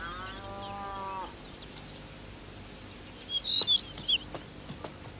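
A cow lowing once, a single held moo of about a second that sags slightly in pitch, over faint bird chirps. About three seconds in, a short flurry of louder high bird chirps.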